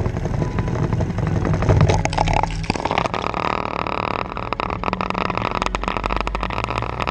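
Honda Foreman 500 ATV's single-cylinder engine running as the quad ploughs through deep water. The sound changes about three seconds in as the low-mounted camera comes up out of the water, and splashing spray then keeps hitting it.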